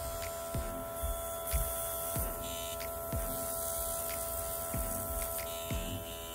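Handheld airbrush's small electric compressor motor running with a steady hum while spraying nail paint, with soft low knocks every half second or so.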